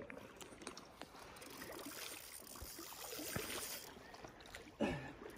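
Faint lapping and trickling of lake water at the shoreline, growing into a fuller rush for a couple of seconds partway through.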